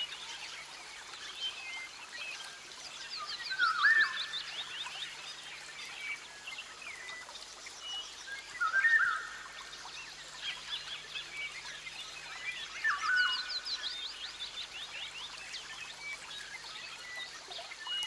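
Tropical rainforest ambience: several birds calling over a steady background hiss, with runs of quick high chirps and louder whistled calls that rise three times.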